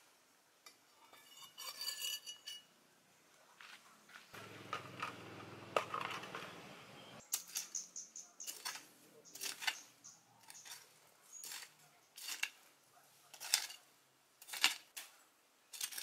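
Small hooked metal hand hoe chopping and scraping into stony garden soil, a stroke about once a second. In the first few seconds the metal tool scrapes and taps on a wooden stump.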